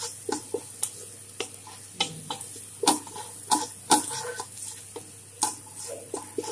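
Wooden spatula stirring and scraping against a frying pan in irregular strokes, about two a second with a short pause about four seconds in, over a faint steady sizzle of onion, garlic and ginger frying in oil.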